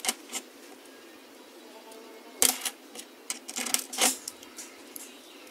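Metal parts of a clamp-type knurling tool clicking and clinking as they are handled and fitted together by hand. The loudest clicks come about halfway through, with a quicker run of small clicks after them.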